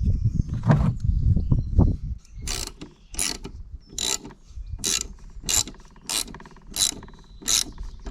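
Low rumbling handling noise for about two seconds. Then a ratchet wrench clicks through short repeated strokes, roughly two every second, as a fastener on the lawnmower is turned.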